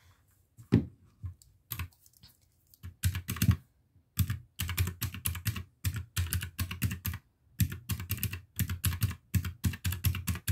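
Keys of a pink desktop calculator with round, typewriter-style buttons being pressed to add up a column of figures: a few scattered clicks at first, then quick runs of key presses from about four seconds in.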